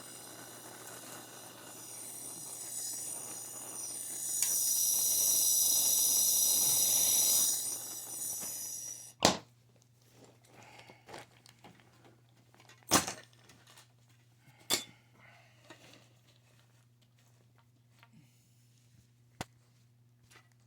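Plumber's torch flame hissing while heating a soldered pipe joint, louder for a few seconds, then shut off about nine seconds in. A few sharp metallic clicks and knocks follow.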